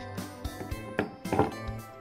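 Background music with a light tune. Over it come a sharp wooden click about halfway through and a short crackly rasp just after, as a velcro-joined slice of a wooden toy cake is pulled apart.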